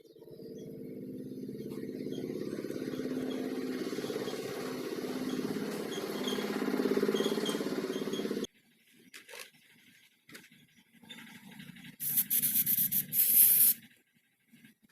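A small electric motor running steadily, a little louder toward the end, then stopping abruptly about eight and a half seconds in. A few light clicks follow, then a short loud burst of hiss near the end.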